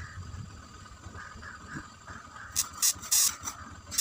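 High-voltage arcing from a flyback transformer driven by a single MOSFET off a battery cell: a run of short, loud hissing crackles starting about two and a half seconds in, the longest near three seconds.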